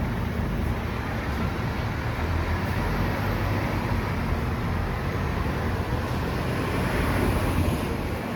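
Scania K230UB city bus running: a steady low engine rumble mixed with road noise.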